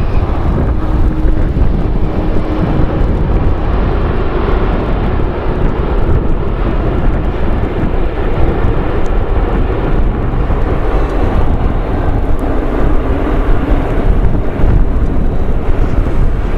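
Airliner jet engines running with a loud, steady noise during a landing in strong crosswind.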